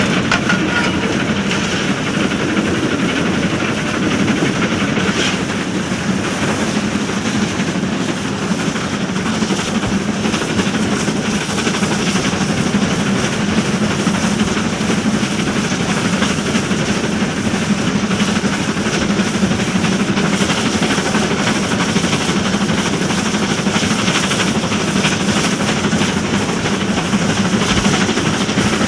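Steam-hauled train running at a steady pace: a continuous rumble with the clatter of wheels on rail joints.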